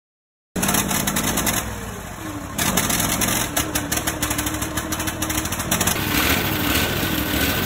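Briggs & Stratton overhead-valve engine on a garden tractor running, starting about half a second in, with a brief dip around two seconds in. The engine is one suspected of a bad head gasket and of blowing oil into its air cleaner.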